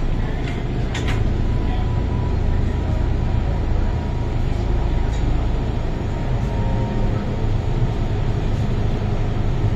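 Metro-Cammell M-Train electric metro car running in the tunnel, heard from inside the car: a steady low rumble of wheels and traction with a faint thin whine. There are a couple of knocks about a second in.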